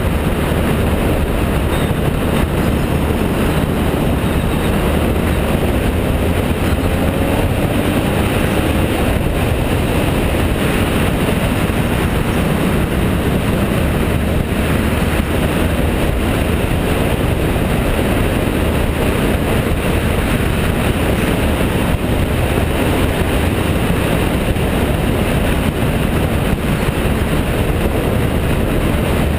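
BMW F650GS motorcycle riding at steady road speed: a continuous rush of wind over the camera microphone mixed with engine and tyre noise.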